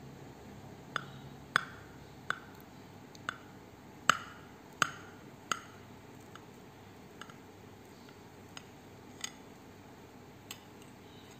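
Serrated knife clicking against a ceramic plate while slicing: about a dozen sharp, irregular clicks, loudest and closest together in the first half, then sparser and fainter.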